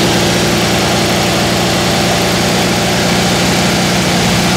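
Air-cooled flat-four engine of a 1970 VW Beetle running steadily during an ignition-timing check.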